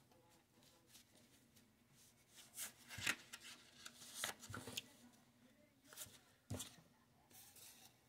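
Faint, scattered papery rustles and short sharp clicks of tarot cards being handled.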